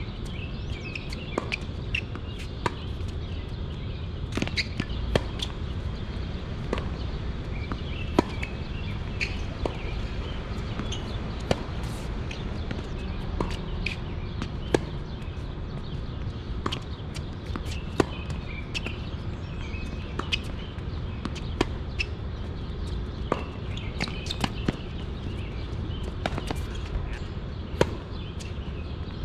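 Tennis ball being hit with rackets and bouncing on the court in a rally: sharp pocks about every second, over a steady low background rumble.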